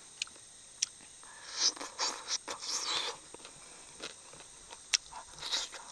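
Mouth noises of a person chewing saucy chicken wings: short wet, smacking bursts in clusters, with a few sharp clicks.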